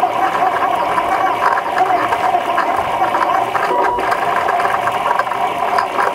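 Tantillus Plus 3D printer printing at high speed: its stepper motors whine steadily as the print head moves, the pitch sliding up and down with each quick move.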